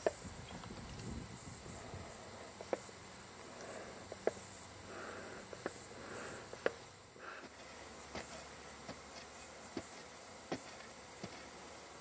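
Insects trilling steadily in a high, lightly pulsing tone, with scattered sharp clicks and knocks every second or two.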